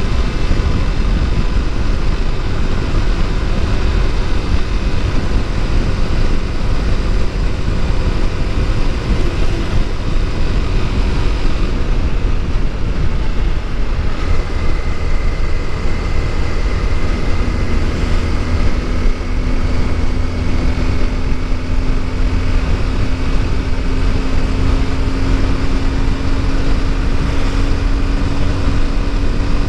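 Honda CBR250R's single-cylinder engine running under way, with a heavy low wind rumble on the microphone. About halfway through the engine note starts to climb slowly as the revs build.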